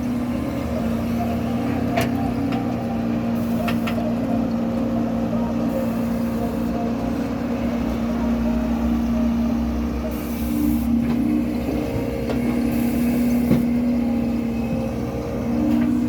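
Excavator's diesel engine running steadily as it works, with a few short sharp knocks about two and four seconds in and again near the end.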